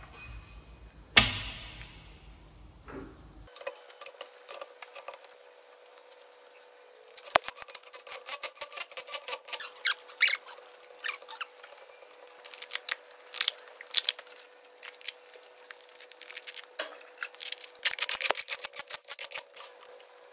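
Hand ratchet wrench clicking and steel tools ticking against the engine while fittings on the diesel engine's injection side are tightened: a sharp click about a second in, then a long run of irregular clicks from about a third of the way through.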